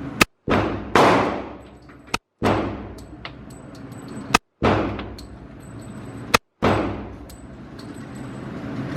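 Gunshots fired one at a time at a slow, even pace, about two seconds apart: four sharp cracks, each followed by a long echoing tail that fades over about a second and a half.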